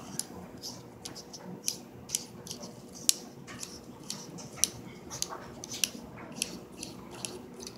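Irregular sharp little clicks and scrapes of a tactical pen's metal parts being handled and screwed back together. The owner had the parts threaded the wrong way, so they don't go together.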